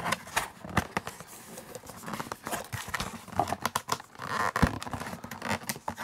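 Corrugated cardboard box lid being worked open by hand: cardboard scraping and rubbing, with many small clicks and taps as the tight flap is pried loose.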